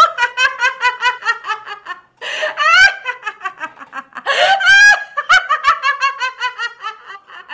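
A woman's high-pitched cackling laugh in the manner of a witch's cackle: three long runs of quick ha-ha-ha pulses, about eight a second, with short catches of breath about two and four seconds in.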